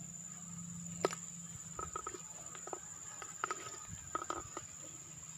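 Scattered clicks and rustles of handling as a caught eel is taken off the hook and put into a bucket, with one sharp click about a second in. A steady high insect drone runs behind.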